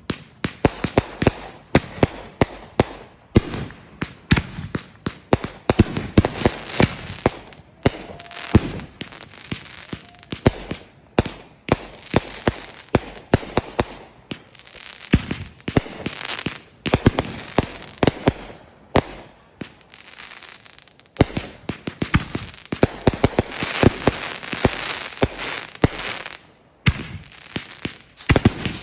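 Fireworks going off in quick succession: a dense string of sharp bangs and pops with crackling between them, the volleys easing off briefly every few seconds.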